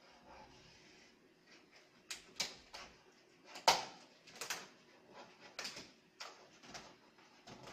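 Cardboard TV box being opened and its packing handled by hand: irregular scrapes and rustles with sharp knocks, the loudest about three and a half seconds in.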